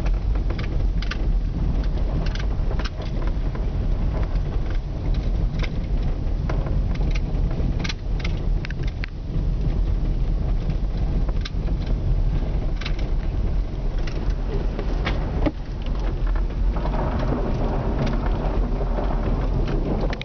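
Car driving slowly on an icy, snow-covered road, heard from inside the cabin: a steady low rumble with frequent sharp crackles from the tyres rolling over crusted ice and snow.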